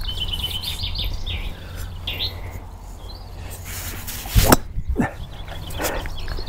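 A golf driver strikes a teed ball once, a single sharp hit about four and a half seconds in that is the loudest sound. Before it, birds chirp, and wind rumbles low on the microphone throughout.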